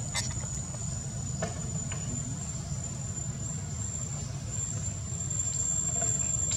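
A steady, thin, high-pitched insect drone holds throughout over a low, even background rumble, with a few faint clicks.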